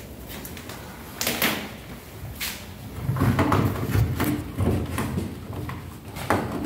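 Scissors snipping through an LED strip with a sharp click, then rubbing and knocking as the strip is pressed by hand into an aluminium LED profile channel.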